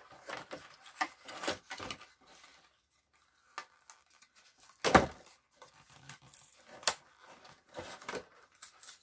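Cardboard and clear plastic headset packaging being handled and pulled apart: scattered rustles, scrapes and clicks, with one louder knock about five seconds in.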